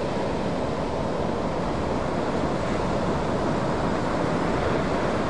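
Steady noise of ocean surf breaking and washing, with wind rumbling on the microphone.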